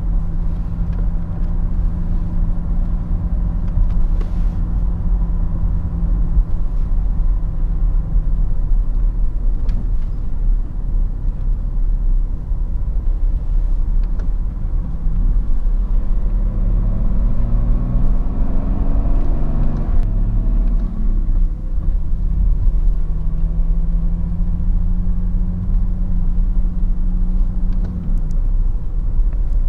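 BMW 530d E39's three-litre straight-six turbodiesel and its tyres on the road, heard from inside the cabin while driving: a steady deep engine drone over road rumble. About halfway through, the engine note rises for several seconds, then settles back to a steady drone.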